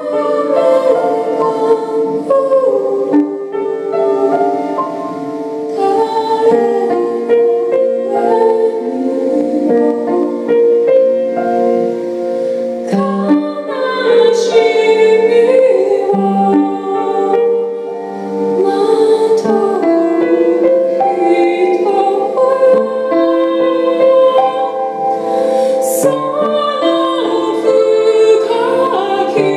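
A woman singing a slow song to her own piano accompaniment, in a style with a Japanese traditional flavour.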